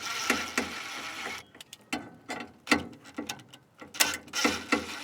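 A screw-driving tool backing screws out of a truck's plastic overhead console: stretches of steady mechanical running near the start and again near the end, with scattered clicks and knocks of the tool and plastic in between.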